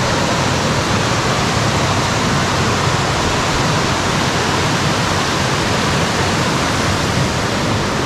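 Mountain stream rushing down a rocky gorge over a chain of waterfalls: a loud, steady rush of water.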